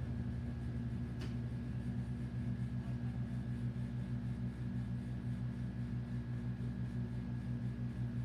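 Amana air conditioner's compressor running with a steady low hum and a thin high whine above it, pulsing quickly and evenly. A compressor the owner calls loud. A faint click about a second in.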